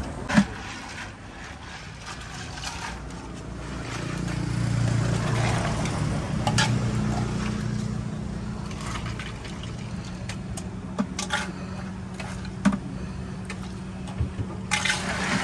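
A plastic ladle stirs and scoops iced chocolate drink in a plastic dispenser jar and pours it into a plastic cup, with sharp knocks and clinks, the loudest just after the start. A low vehicle engine hum swells through the middle and then holds steady.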